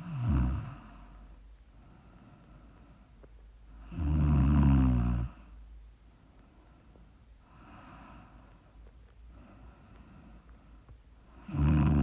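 A woman snoring in her sleep: three loud, low snores, near the start, about four seconds in and at the end, with much quieter breaths between them.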